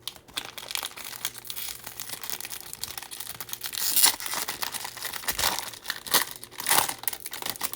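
A Bowman baseball card pack's wrapper being torn open and crinkled by hand: a dense run of crackling, with louder rips about four seconds in and again near the end.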